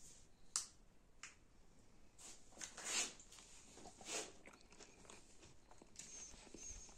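Chocolate biscuits being crushed: two sharp cracks, then a louder stretch of crunching about three seconds in and another crunch about four seconds in.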